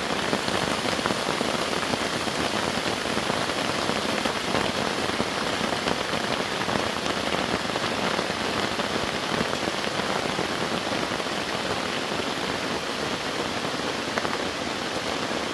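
Steady heavy rain from a rainstorm: a dense, even patter of countless drops that holds at the same level throughout.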